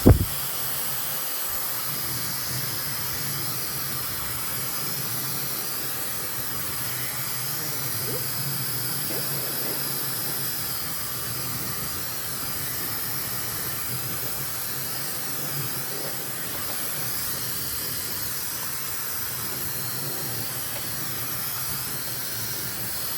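High-speed brushless-motor hair dryer blowing steadily on its cold setting: an even rush of air with a faint high whine. It starts with a click.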